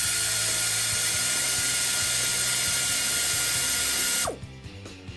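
Powered ratchet running steadily on a bolt, then released about four seconds in, its pitch falling as it winds down. A few light clicks follow.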